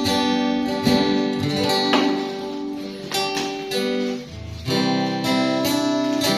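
Guitar music: chords strummed and notes picked, ringing on. The playing drops away briefly about four seconds in, then comes back with fuller chords.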